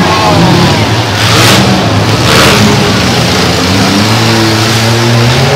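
Several compact demolition derby cars running and revving hard in the arena, their engines blending into one loud, continuous drone that rises and falls. Two short hissy bursts about a second and a half and two and a half seconds in.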